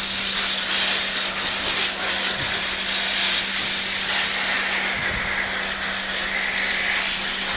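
Compressed-air nozzle blowing at about 2 to 3 kg pressure, a loud steady hiss that swells and dips slightly as the jet moves over the relay, blowing petrol and dust out of the relay's jewel bearings and interlocks.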